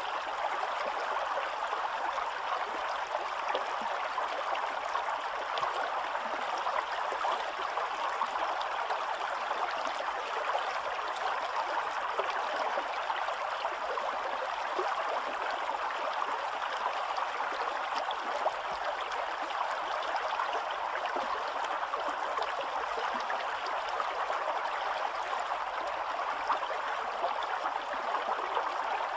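Spring-fed stream running and splashing over rocks: a steady, even rush of flowing water.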